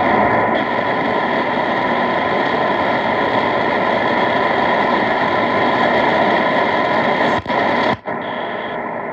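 Shortwave radio receiver's speaker putting out steady static hiss while tuned to a frequency with no station coming in. The static cuts out briefly twice near the end as the receiver is retuned.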